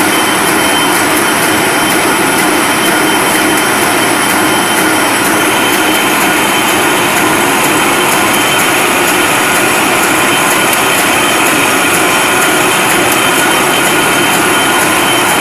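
Wolf paper sheeter with an inline printing unit running, as the printed paper web is cut into sheets and carried off on conveyor tapes. It makes a loud, steady mechanical din with a thin high tone held over it.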